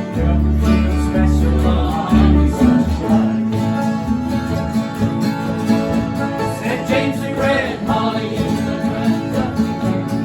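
Bluegrass-style music: plucked acoustic guitar and banjo, with a singing voice coming in during the second half.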